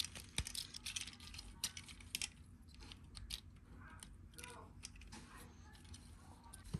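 Small plastic clicks and snaps of a Transformers Optimus Prime voyager-class action figure's joints and parts being moved by hand, scattered and faint, with a louder knock near the end.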